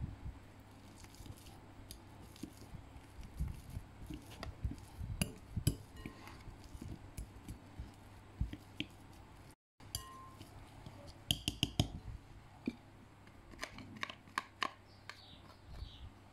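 Metal wire potato masher mashing boiled sweet potato in a glass bowl: irregular clinks and taps as the masher strikes the glass, with soft squishing of the mash. A denser run of taps comes a little after halfway.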